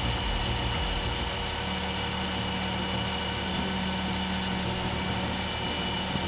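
Mini excavator's diesel engine running steadily with its hydraulics. Its note changes about a second and a half in, the deep rumble giving way to a higher steady hum.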